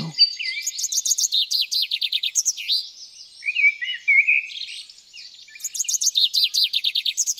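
Forest songbirds singing in early spring, chirping over one another. There are two fast trills of about ten notes a second, one about a second in and one near six seconds, with slower sweeping chirps between them.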